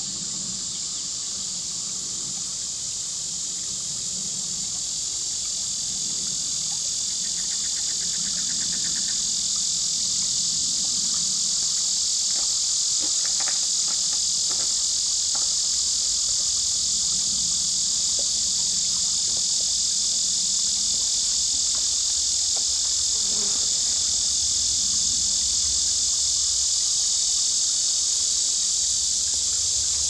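Dense chorus of crickets and other insects: a continuous high-pitched buzzing trill that grows gradually louder over the first ten seconds or so, then holds steady.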